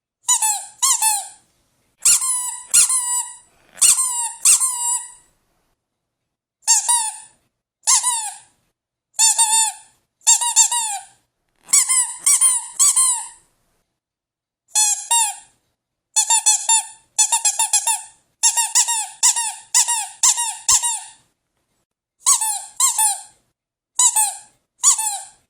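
Squeaky dog toy being squeezed over and over: short, high squeaks, some single and some in quick runs of two to five, with dead silence between the groups.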